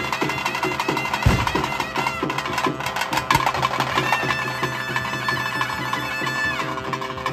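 Traditional ritual music: a wind instrument holding long, sustained melodic notes over a steady drum beat of about three strokes a second, with one heavy drum hit about a second in.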